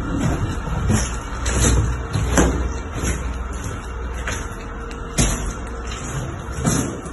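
Footsteps over broken plaster and rubble on a floor, with a few sharp cracks of debris underfoot, over a low steady rumble.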